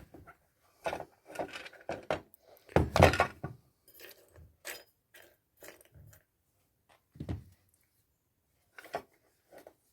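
Irregular clatter and knocks of a power tool and loose parts being handled and set down on a hard work surface, with a loud cluster of knocks about three seconds in.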